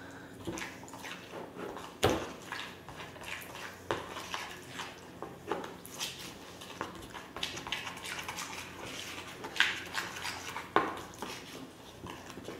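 Metal spoon stirring a thick red pepper-paste sauce in a ceramic bowl, with irregular clinks and scrapes against the bowl. A sharper clink comes about two seconds in and two more near the end.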